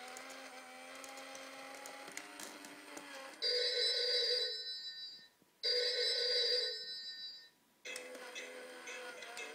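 Novelty animated chameleon telephone playing a stretch of its singing song, then ringing in two loud ring bursts of about two seconds each with a short silence after each, before the singing picks up again.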